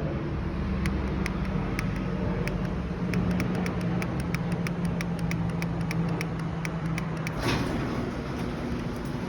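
Garage door opener running: a steady motor hum with repeated clicking that comes faster as it goes. The hum stops about seven seconds in with a short rush of noise.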